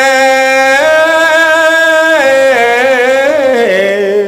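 Khmer smot, a Buddhist monk's solo chanted recitation: one voice holds long ornamented notes, wavering on them, stepping up in pitch about a second in and dropping lower near the end.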